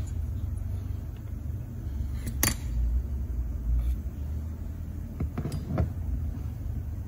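The cylinder of an Echo PE-280 two-stroke engine being worked and pried off the crankcase with a screwdriver: low rumbling handling noise, with a sharp metal clink about two and a half seconds in and a few lighter knocks a little past five seconds. The jug is stubborn and comes off with trouble.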